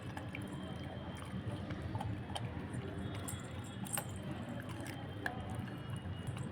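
Pit bull puppy chewing raw meat: wet squelching and smacking with scattered sharp clicks.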